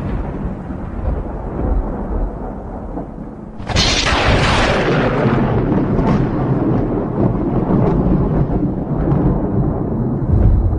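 Thunder sound effect: a low rolling rumble fading away, then a sharp thunderclap crack almost four seconds in, followed by a long rumble that slowly dies down.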